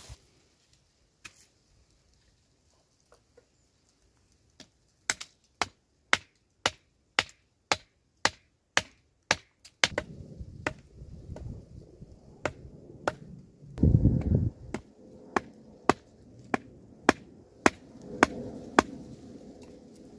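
Sharp, regular chopping strokes, about two a second, starting about a quarter of the way in. A low rumbling noise joins about halfway and swells briefly about two-thirds through.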